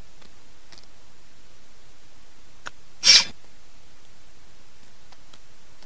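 Faint soft clicks as fingers work through the sardines and rice, and about three seconds in one short, sharp rush of breath through the nose, like a sniff or a stifled sneeze while eating spicy food.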